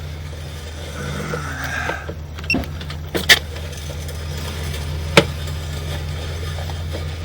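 Steady low hum of an idling engine, with a few sharp clicks and knocks about two and a half, three and five seconds in.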